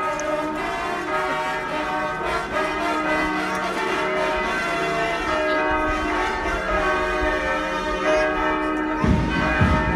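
Church bells pealing, many overlapping bell tones sounding together. About nine seconds in, low irregular thumping joins them.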